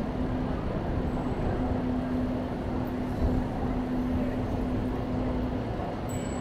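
City road traffic heard while riding a bicycle: a dense, steady rumble with a low hum running through it that breaks off briefly a few times.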